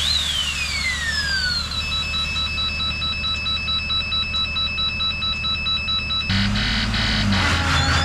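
Electronic siren-like tones: rising and falling sweeps, then a steady pulsing beep of several high tones, changing to a new pitched pattern about six seconds in. Underneath, the low steady hum of a diesel truck engine running.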